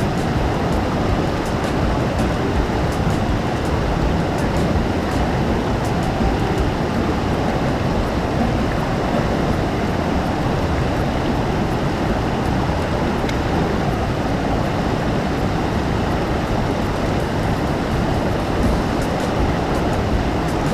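Steady rushing of a waterfall, a dense unbroken roar of falling water.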